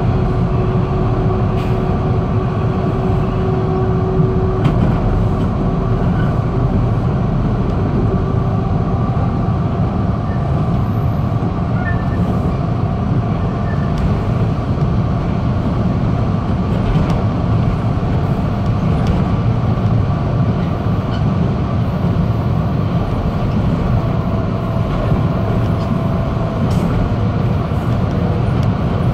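Toronto subway train running along the track, heard from inside the lead car: a steady low rumble of wheels on rail, with a faint whining tone that fades out about nine seconds in and a few faint clicks.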